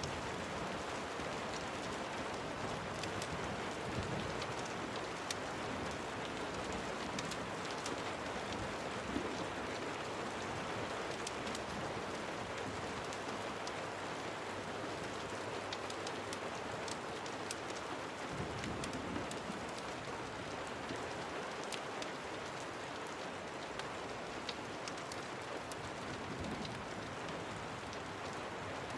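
Steady rain falling, with scattered sharp ticks over the constant hiss.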